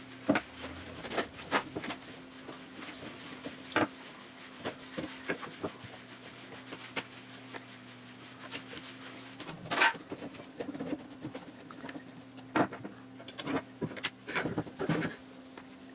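Scattered light clicks and knocks of plywood parts, screws and cross dowels being handled and fitted together by hand, over a faint steady hum.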